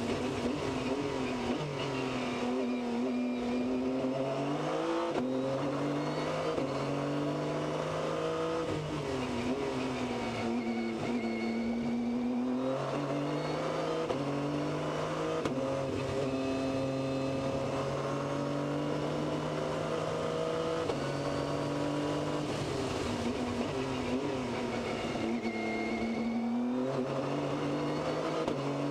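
P2 prototype race car engine heard from the cockpit at racing speed, its pitch climbing through the gears with quick upshifts, then falling as it brakes and blips down through the gears for corners, over and over.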